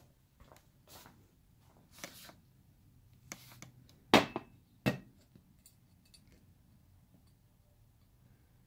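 Handling sounds of a small lathe-turned metal gas orifice and a cast-iron stove burner: soft clicks and rustles, two sharp metal knocks a little past the middle, then a few faint ticks as the orifice is pressed into the burner's port.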